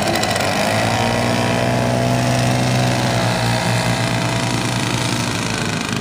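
Lazair ultralight's twin engines running at full power on the takeoff roll, a steady engine drone that grows louder about a second in and eases a little near the end as the aircraft moves away.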